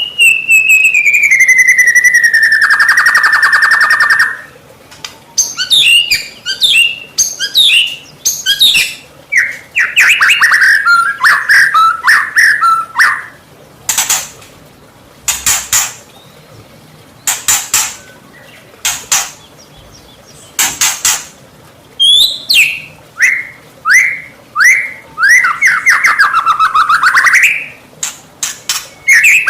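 White-rumped shama (murai batu) singing a loud, varied song. It opens with a long whistle sliding down into a buzzy trill, then runs into rapid chattering phrases, several short harsh rasping notes, and quick whistled notes near the end.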